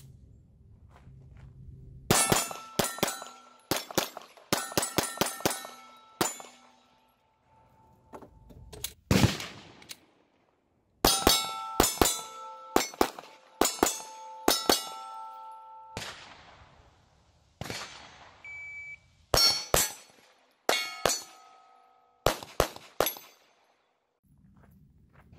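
Smith & Wesson M&P 2.0 Subcompact pistol firing several quick strings of shots at steel targets. Hits on the steel plates ring on afterwards with a clear ding at a few steady pitches.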